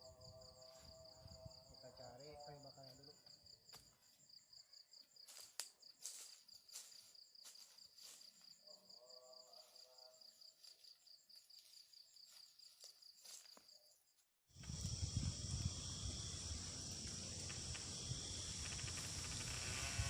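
Insects chirring steadily in a fine, pulsing high trill, with a few scattered clicks and knocks. About fourteen seconds in, this cuts off abruptly and a much louder steady rushing noise takes over.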